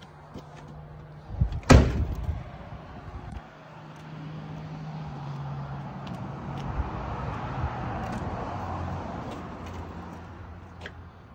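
Car door of a 1976 Leyland P76 sedan slammed shut, one loud bang about two seconds in. A softer steady noise follows, with a few light clicks near the end.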